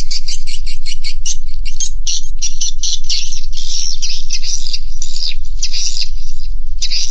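Swiftlets (edible-nest swiftlets) calling inside a swiftlet house: a fast, even run of high chirps, about eight a second, gives way after about two seconds to longer, denser twittering calls. A steady low hum runs underneath.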